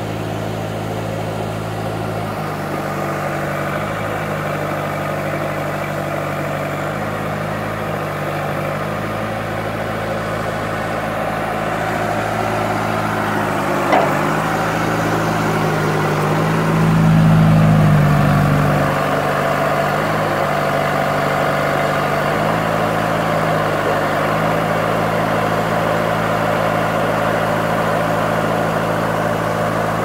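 2002 Vermeer V8550 trencher/backhoe's diesel engine running steadily at idle. About halfway through there is a short knock, and soon after the engine note briefly swells louder and shifts before it settles back to idle.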